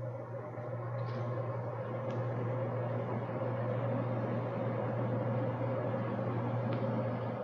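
Steady machine hum with an even whirring noise and a strong low drone.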